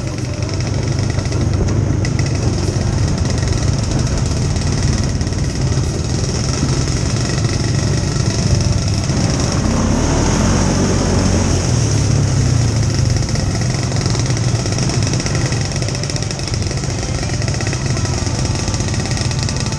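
ATV engine running steadily while riding along a dirt trail, with a rise of splashing noise about halfway through as it crosses a wet, muddy stretch.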